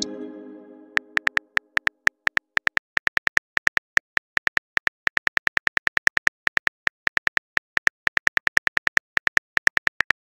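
Simulated phone keyboard key clicks, a fast even run of about five or six short ticks a second, as a message is typed. At the very start a pitched chime-like tone fades out over about a second.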